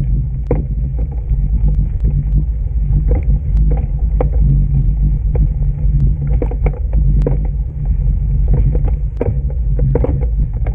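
Wind rumbling on the microphone while riding a bike along a rough trail, with frequent short clicks and clatters from the bike.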